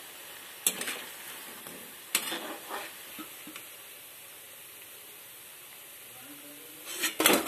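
Pakoras deep-frying in hot mustard oil in a kadhai, a steady sizzle, with a slotted metal spoon striking the pan sharply twice and a louder clatter near the end.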